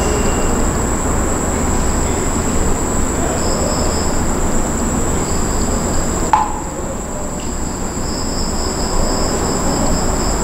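Crickets chirping steadily at a high pitch, with a second insect trilling on and off, over a constant low background rumble. A single sharp click sounds a little past halfway.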